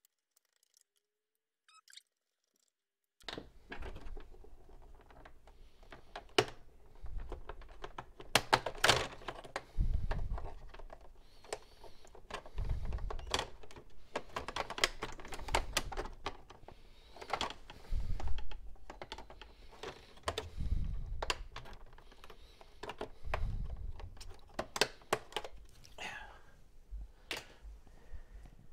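Hands and a screwdriver working inside the opened plastic-and-metal case of an all-in-one computer: irregular clicks, taps and a few dull thumps as parts are unscrewed, handled and lifted. It starts after about three seconds of near silence.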